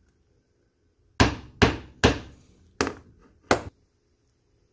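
Claw hammer striking a steel pin to start it into a distributor drive gear resting on a wooden block: five sharp taps, three in quick succession, then two more spaced out.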